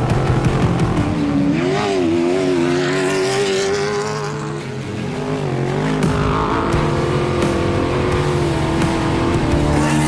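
Off-road race truck's engine running at high revs, its pitch rising and falling as the driver works the throttle, with a brief dip in loudness a little before the middle.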